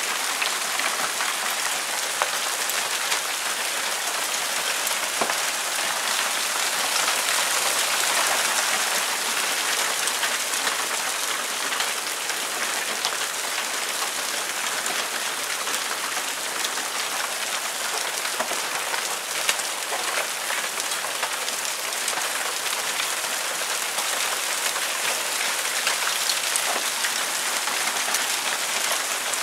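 Marble-sized hailstones falling steadily, a dense hiss of countless small hits on paving, a wooden garden table and lawn, a little heavier about a quarter of the way in.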